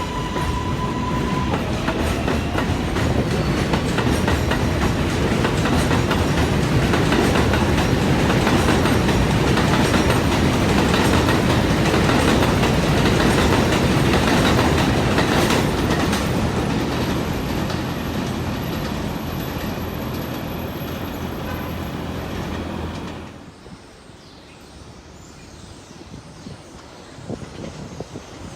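Kawasaki R188 subway train running on the tracks, its wheels clacking over rail joints with some wheel squeal. The train noise builds to a peak midway, eases off, then drops away suddenly about 23 seconds in, leaving quieter background noise.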